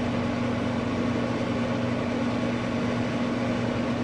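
Steady machine hum with a low, even tone, unchanging throughout.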